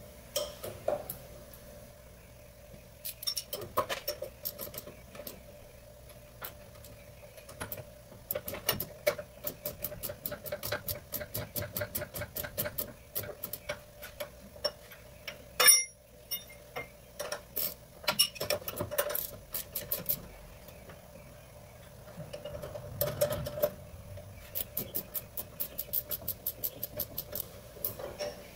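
Hand ratchet clicking in quick runs as the 14 mm sway bar link bolts are run in, with one louder metal clank about halfway. A faint steady hum sits underneath.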